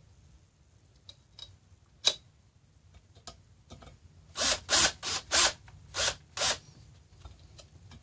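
A sharp click, then five short rasping strokes in quick succession: a hand tool turning a small screw into the barstool's metal brace.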